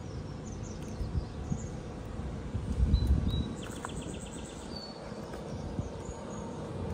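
Outdoor ambience of small birds chirping, with a short rapid trill in the middle, over low wind rumble on the microphone that swells briefly about three seconds in. A faint steady hum runs underneath.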